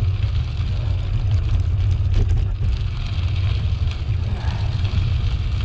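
Steady low rumble of air rushing over the microphone of a moving bicycle, with a fainter hiss of the tyres rolling along the path.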